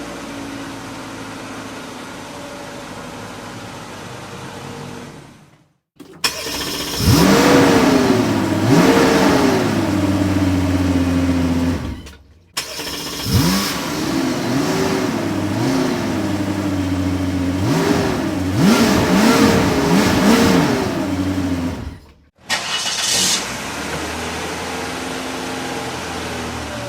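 Car engines in a run of separate clips. First a steady idle. Then an engine that sweeps up sharply, as on starting, revs twice and settles into idle. Then an idling engine blipped up in revs several times, and finally another steady idle.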